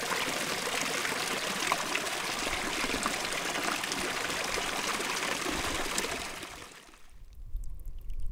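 Rippled lagoon water lapping and splashing close to the microphone: a steady wash full of small drips and splashes. It fades out about six and a half seconds in, leaving a low wind rumble.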